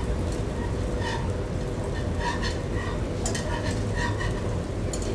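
Wire whisk stirring melted butter in a non-stick pan, with irregular clicks and short metallic rings as it knocks and scrapes on the pan, and the butter sizzling. Under it runs a steady low rumble.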